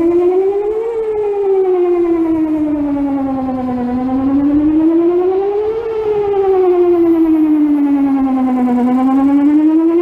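Whelen WPS-2800 series 4008 electronic outdoor warning siren sounding a loud wail. Its low tone glides slowly up and down, peaking about every five seconds.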